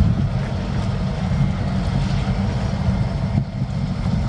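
Low, steady rumble of the diesel locomotives of a slow-moving local freight train, led by a GP9RM, as it approaches.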